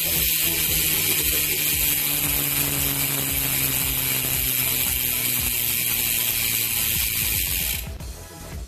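Freehub of an ECC Race N85 carbon road-bike rear wheel ticking as the wheel coasts: a dense, shrill, trebly rattle of rapid pawl clicks, the 'cricket' sound, heard close up. It stops abruptly near the end.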